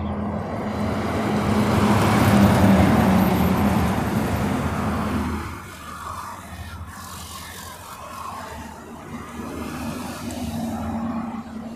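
A motor vehicle passing by: engine hum and road noise swell to a peak about two and a half seconds in, then fade away by about five seconds, leaving a fainter hum.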